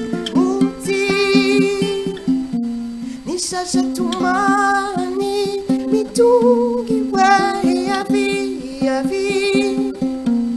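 A woman singing a melody with a wavering vibrato, accompanied by a ukulele.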